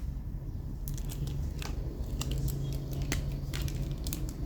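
Handling noise from a vintage Zippo lighter being turned over in the hands: scattered light clicks and taps of the metal case, over a steady low hum.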